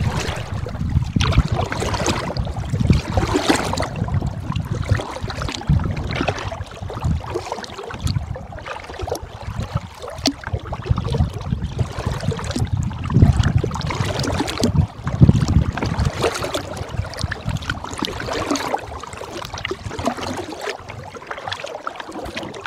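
Double-bladed kayak paddle dipping and splashing in the water with each stroke, drips running off the blades, over a low rumble of wind buffeting the microphone.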